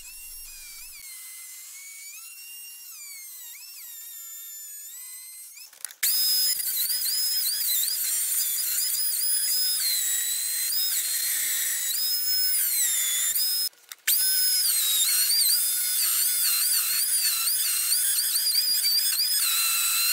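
Router motor on a router table whining at high speed while a pattern-cutting bit shapes a curved table leg, its pitch dipping and recovering again and again as the bit bites into the wood. It is fainter for the first few seconds, then much louder from about six seconds in, with a short break about two-thirds of the way through.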